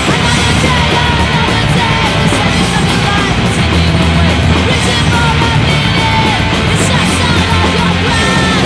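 Loud crust punk song with distorted electric guitars, bass and drums, with shouted vocals.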